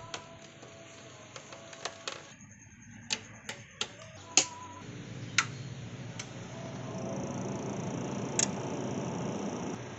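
A series of sharp clicks and snaps as audio cable plugs are pushed into jacks and a switch is flicked on the back of a power amplifier, the loudest about halfway through. From about seven seconds in, a steady low rushing noise sets in.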